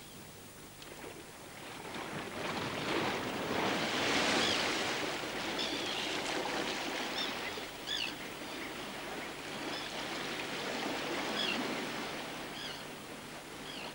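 Sea surf washing onto a sandy beach, swelling to its loudest about four seconds in and then easing. A few short high chirps sound over it.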